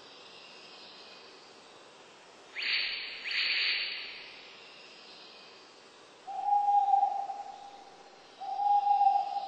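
A bird calling: two short, hoarse rasps about two and a half seconds in, then two long, steady single-pitched calls, each held about two seconds, over a faint hiss.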